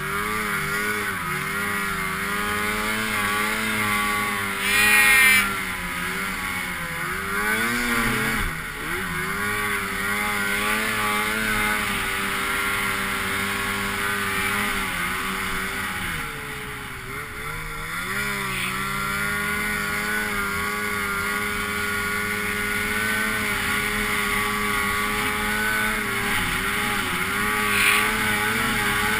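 Snowmobile engine running under changing throttle, its pitch rising and falling as the sled rides along, easing off about two-thirds of the way through and then climbing again. A brief loud burst about five seconds in.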